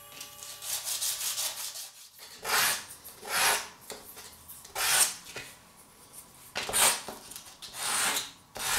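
Wooden knife handle being hand-sanded, rubbed back and forth on a sheet of sandpaper laid flat: a series of rasping scrapes, softer at first, then about six louder strokes at uneven intervals.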